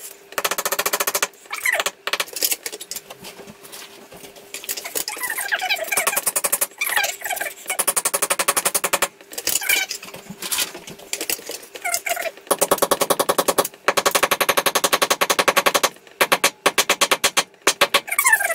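A hammer tapping a blue plastic wall plug (Rawlplug) into a drilled hole in the wall, in several rapid runs of taps with short pauses between.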